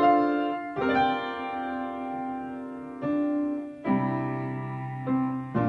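Background instrumental music: sustained chords that change every second or so.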